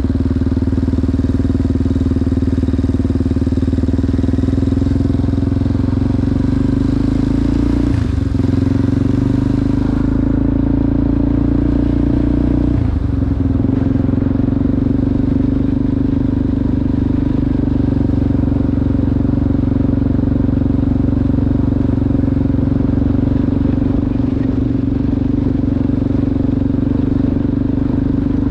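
ATV engine running steadily under way, its pitch holding nearly constant, with two brief dips in the engine note about a third and halfway through.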